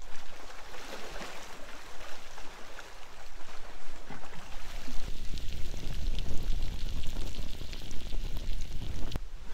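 Lake water lapping against shoreline rocks, with a low rumble joining about halfway through.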